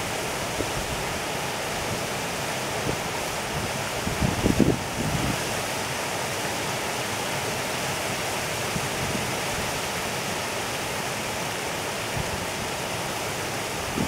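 Shallow stream rippling steadily over a sandy, pebbly bed, with a few brief low thumps about four to five seconds in.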